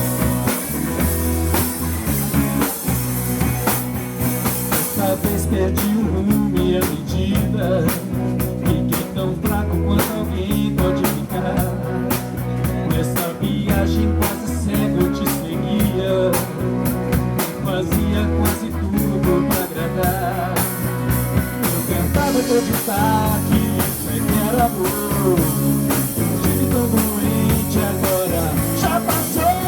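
A rock band plays an instrumental passage with drum kit and guitar. Partway through, a lead melody with bending notes comes in over the steady rhythm.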